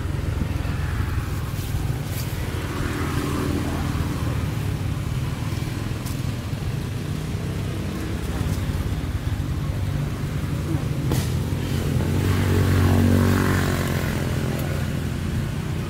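Steady low rumble of motor traffic, with one motor vehicle passing and swelling loudest about two-thirds of the way through before fading.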